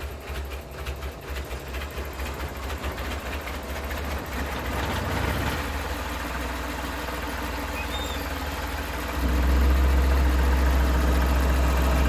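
Suzuki F6A three-cylinder engine running cold with the throttle plate closed, no coin propping the pedal. It pulses unevenly for the first few seconds, then settles into a steady idle, and gets louder about nine seconds in.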